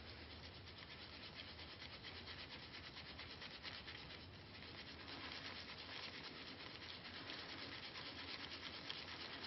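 Faint, steady wet rubbing of a bar of Irish Spring soap against a wet palm, working it up into a lather.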